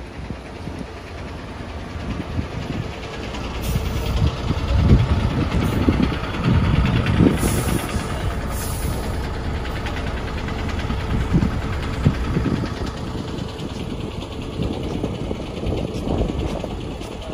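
A motor vehicle's engine running close by, a steady hum that builds about four seconds in and fades away after about thirteen seconds, with wind buffeting the microphone.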